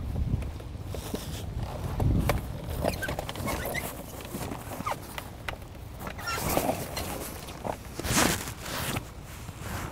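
Water splashing and sloshing as a man climbs into a Klepper folding kayak in shallow water and paddles off, with kayak paddle strokes splashing at intervals; the louder splashes come about two-thirds of the way through. Low rumbles sound near the start.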